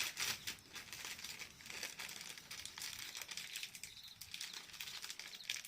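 Irregular crinkling and rustling with many small crackles, from handling as the fish catch is sorted into shares. Insects chirp faintly in the background.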